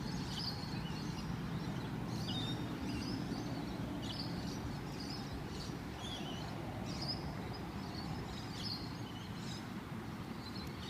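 Steady noise of road traffic crossing an overhead bridge, with short bird chirps scattered throughout.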